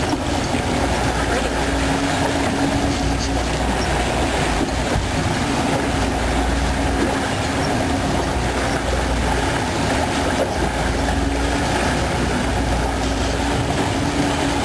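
Motorboat engine running steadily under way, with a low hum and a constant rushing noise of wind and water over the hull.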